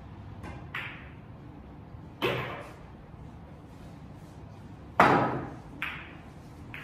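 Pool balls clacking: sharp clicks of cue on cue ball and ball striking ball, one loud clack about two seconds in and the loudest about five seconds in, followed by two lighter clicks.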